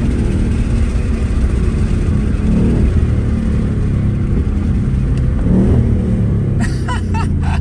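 Ford Mustang GT's 5.0-litre Coyote V8 under way, its deep exhaust note rising in pitch a few times as the revs climb.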